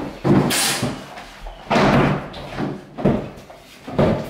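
Kitchen cabinet kickboards being knocked and slid into position on the floor: a handful of sharp knocks and short scraping slides as the L-shaped plinth frame is lined up.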